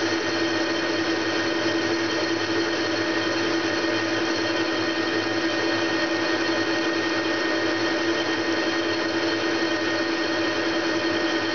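Metal lathe switched on and running steadily with a constant whine while the turning tool cuts the spinning metal backplate.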